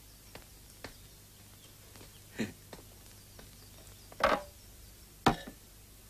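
A few scattered sharp knocks and clicks over a faint low hum. The loudest knock comes about four seconds in, and another follows a second later.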